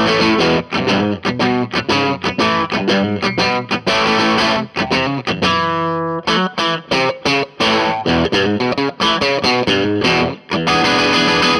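Fender electric guitar played through an Orange Crush Pro 60 amp's dirty channel set for a light overdrive that only just breaks up, giving a mild, bluesy crunch. Quick picked phrases, with one held note ringing out about five and a half seconds in.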